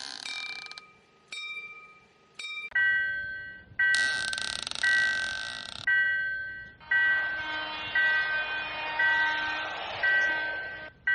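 Cartoon railroad crossing warning bell: a two-note electronic chime, struck about once a second and fading after each strike. A few quieter single chimes come before it settles into the steady ring, and a hissing rush runs under it partway through.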